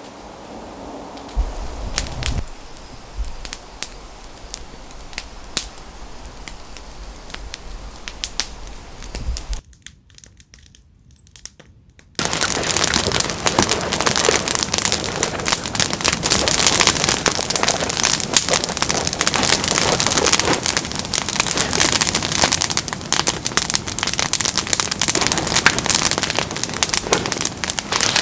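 Wood fire crackling: scattered sharp pops for the first several seconds. After a short break, from about twelve seconds in, a much louder, dense crackling carries on.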